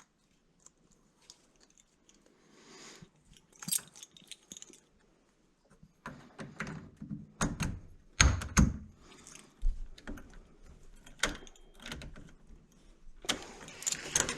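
Keys jangling with clicks and knocks of metal door-lock hardware being handled and fitted, while the lock won't line up. A cluster of heavier thumps comes just past the middle.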